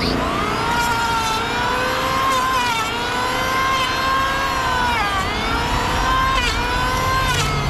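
A small engine running steadily at high speed, its pitch sagging and recovering a few times, most clearly about five seconds in and again near the end.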